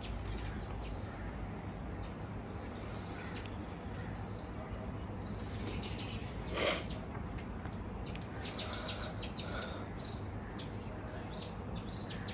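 Small birds chirping in short, scattered high calls against a faint steady background, with one louder, sharp short sound about halfway through.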